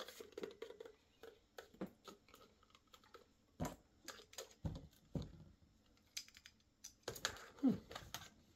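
Hard plastic parts of a Red Sea Reefer Skimmer 900 pump and venturi being worked by hand: irregular clicks, taps and a few knocks as a locking sleeve is turned and pulled apart to change the venturi's orientation.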